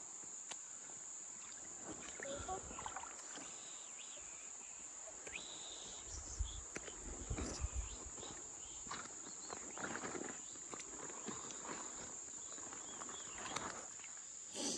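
A steady, high, unbroken insect drone, with scattered sloshing and splashing of feet wading through shallow creek water over rocks.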